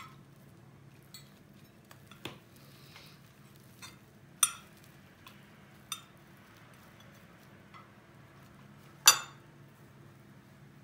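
Metal fork and knife clinking and scraping on a ceramic plate while cutting eggy bread: a scattered series of sharp clinks, the loudest about nine seconds in.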